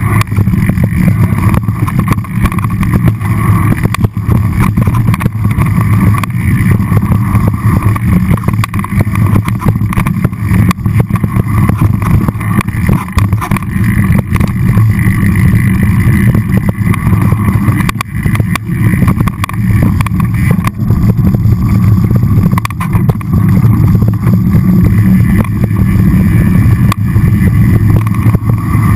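A mountain bike rolling fast down a rocky dirt trail: steady low rumble of wind buffeting the camera's microphone and tyres on dirt, with frequent small rattles and knocks as the bike goes over rocks.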